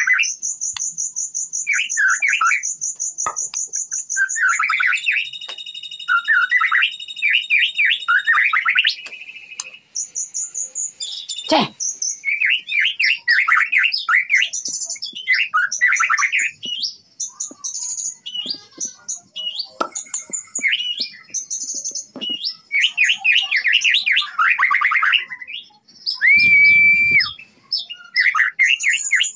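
White-rumped shama (Kota Agung murai batu), a young six-month-old bird, singing a long, varied song: a fast high trill near the start, then quick chattering and whistled phrases broken by short pauses, and a held steady whistle near the end.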